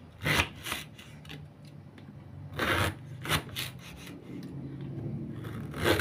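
Kitchen knife slicing crosswise through a peeled bamboo shoot on a wooden chopping board: about six short rasping cuts at uneven intervals, as the blade goes through the shoot onto the board.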